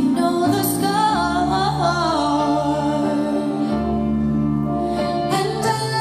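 A slow, tender song: a woman's voice singing a wavering melodic line over sustained instrumental chords and held bass notes.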